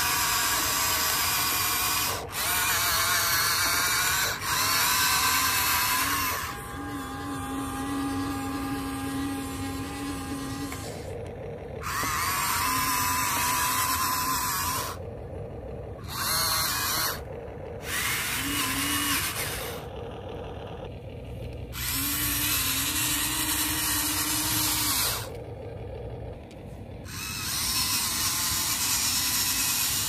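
HuiNa RC excavator's electric motors and gearboxes whining in bursts of a few seconds as the machine is worked, each burst starting and stopping sharply. Between the bursts a quieter, lower hum runs on.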